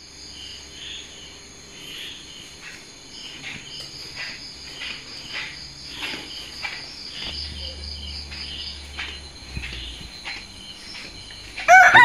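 A steady chorus of insects, high even tones with short repeated chirps over them. A rooster starts to crow right at the end.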